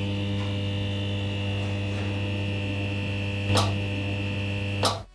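Neon-sign electrical hum sound effect: a steady mains-type hum with a higher buzzing tone over it, broken by two brief crackles, about three and a half seconds in and near the end.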